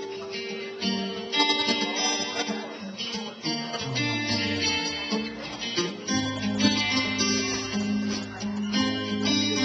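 Live blues trio playing an instrumental intro: a picked guitar line, with a bass coming in underneath about six seconds in.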